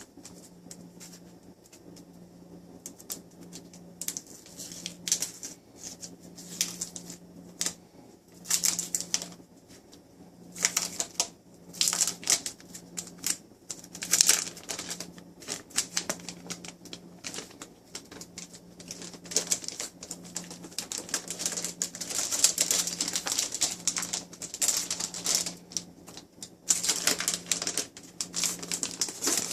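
Plastic wrapping crinkling and rustling as it is pulled off a new tablet. It comes in irregular crackly bursts that get busier in the second half, over a faint steady low hum.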